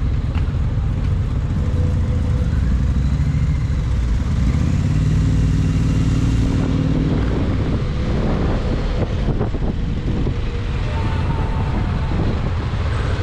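A motorcycle being ridden through city traffic, its engine running steadily, with road and wind noise over it.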